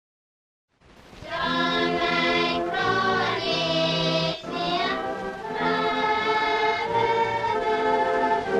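A choir singing a slow melody in long held notes, starting out of silence about a second in.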